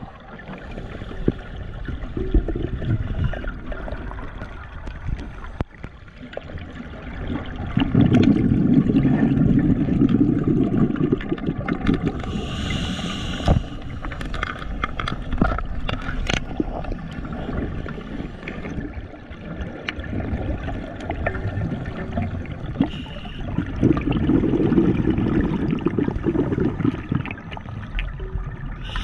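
Scuba diver's regulator breathing heard underwater: two long swells of low bubbling from exhaled air, about a quarter of the way in and again near the end, with short hisses of inhaling between them, over a steady wash of water noise.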